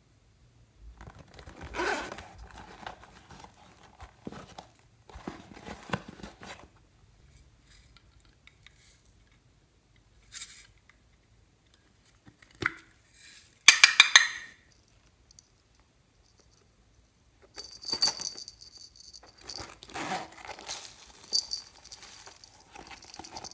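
Hands handling and opening small plastic toy cases, with rustling and scraping and a short run of sharp, loud plastic clicks partway through. Near the end a small metal jingle bell rings and jingles as a purse is handled.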